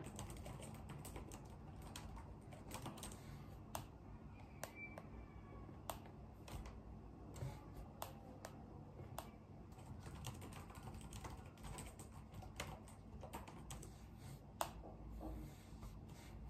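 Typing on a laptop keyboard: faint, irregular key clicks, with a few sharper ones standing out.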